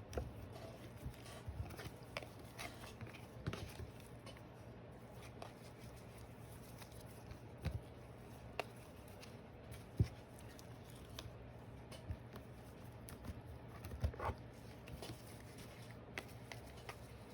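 Scattered light taps and clicks of trading cards being handled and sorted, over a low steady hum.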